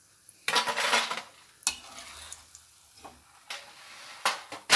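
Metal slotted spatula scraping and clinking against the kadai and a steel plate as fried butter murukku is lifted out of hot oil and drained, with bits of oil sizzling. It comes in a few short bursts, the loudest about half a second in and another near the end.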